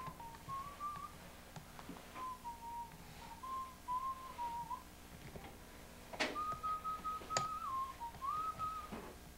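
A person whistling a slow tune in three phrases, holding notes that step up and down, with a pause about five seconds in. A few sharp knocks sound along with it, the loudest two about six and seven and a half seconds in.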